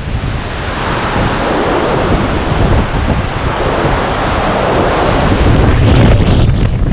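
Storm-force wind gusting, buffeting the microphone with a low rumble under a broad rushing noise that builds and is loudest about six seconds in.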